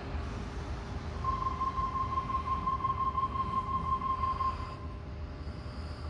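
Sydney Trains Waratah door-closing warning: a rapid high beeping for about three seconds over the idling train's hum. Then the train begins to pull away.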